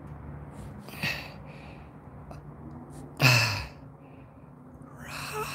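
A man breathing and sighing: a short breath about a second in, a louder sigh with falling pitch about three seconds in, and a breath in near the end, over a steady low hum.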